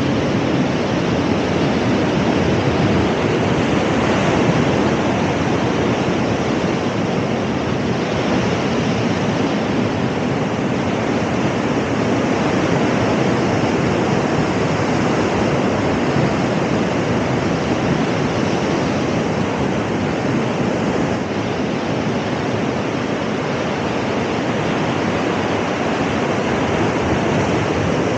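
Heavy storm surf from a passing hurricane breaking continuously over rocks and onto the beach, a steady, unbroken wash of water noise.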